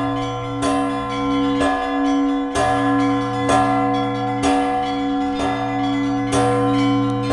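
Orthodox church bells ringing, with a fresh strike about once a second over the steady, lingering hum of the larger bells.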